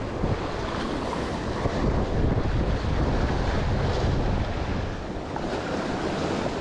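Wind buffeting the microphone over waves washing and breaking against jetty rocks, the low wind rumble heavier in the middle.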